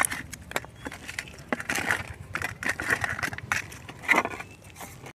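Hands rubbing salt and turmeric into raw katla fish heads on a steel plate, giving irregular wet clicks and scrapes.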